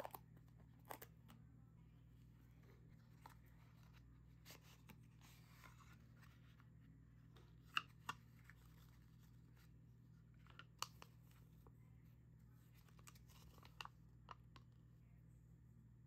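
A small paperboard box being opened and its insert pulled out by hand: faint scraping and rustling of the card with scattered sharp clicks and taps, the loudest about eight and eleven seconds in, over a low steady hum.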